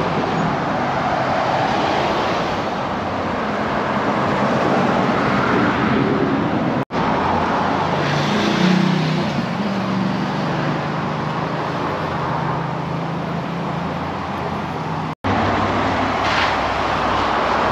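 Motor vehicle and road noise: the steady hum and rush of a car, heard through several short clips cut together.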